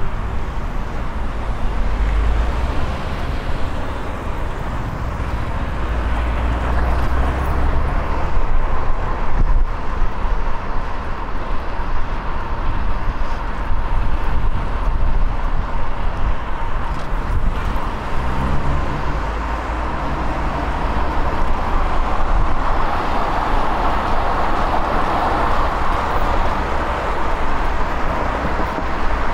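City road traffic noise heard from a riding cyclist, with wind rushing over the microphone.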